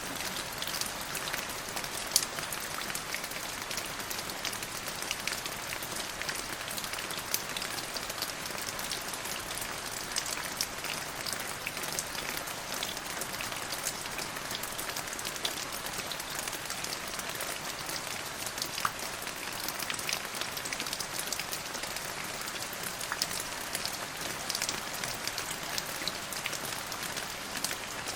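Steady rain with a dense hiss and many small drops ticking.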